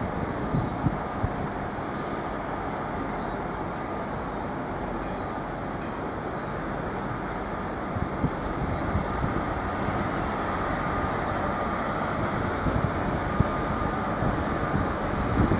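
Distant diesel freight locomotive hauling a train of tank wagons: a steady low engine rumble, with a faint whine that grows stronger over the second half as it draws nearer.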